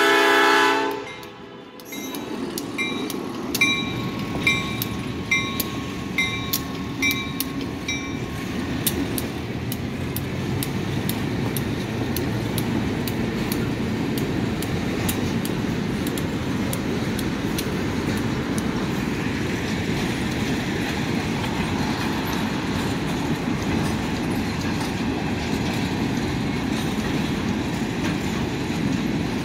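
Freight train with a diesel locomotive: its horn cuts off about a second in, then a bell rings about three times every two seconds for several seconds, giving way to the steady rumble and clacking of wheels as the locomotive and freight cars roll past.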